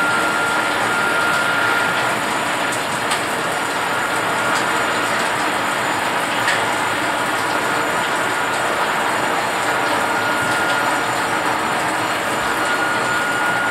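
Water running steadily from a bathtub shower into the tub, splashing as it rinses a dog's coat, with a faint steady high whistle under it.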